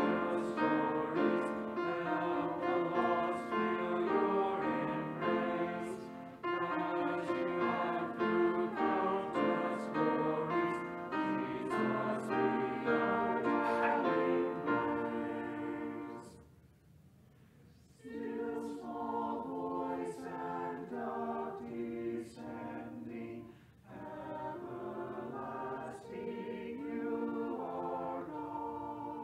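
Mixed-voice church choir singing a hymn-anthem. A pause of about a second and a half falls roughly 16 seconds in, between verses, and then the next verse begins.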